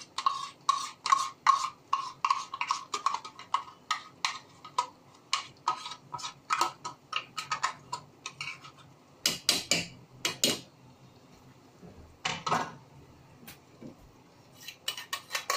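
Metal spoon scraping and tapping against the inside of a steel jar as ground chutney is scooped out. A quick run of ringing clinks, about three or four a second, gives way after the middle to a few louder, more spaced clinks.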